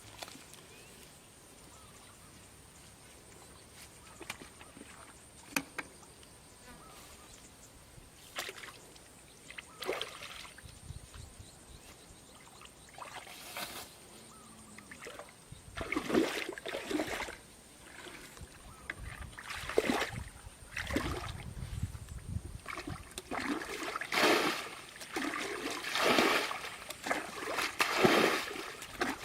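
Water splashing and sloshing: a few faint clicks at first, then from about halfway through, repeated splashes roughly a second apart that grow louder toward the end.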